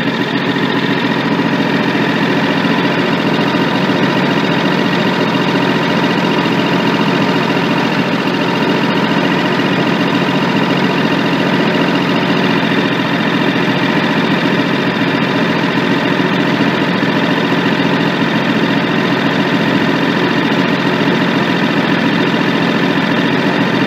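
Kawasaki small engine idling steadily.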